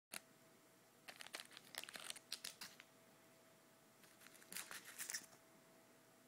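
Candy wrapper crinkling in two short spells of crackly rustling, one about a second in and another past the middle, over a faint steady tone.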